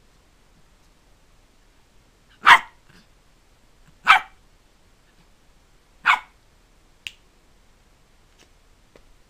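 Small long-haired dog barking three times, short sharp barks about a second and a half to two seconds apart, followed by a faint short click.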